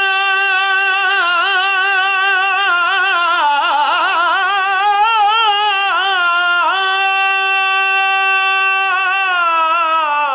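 A man singing one long, wordless, drawn-out vocal line in the style of a majlis lament: long held notes with wavering ornaments, dipping lower about a third of the way in, then held level again and cut off at the end.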